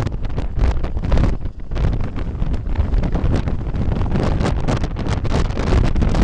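Strong wind blowing hard across the microphone: loud, low buffeting noise that rises and falls in gusts.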